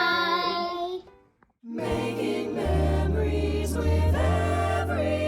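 Sung song with backing music, breaking off for a moment about a second in, then starting again with a steady bass line under the voices.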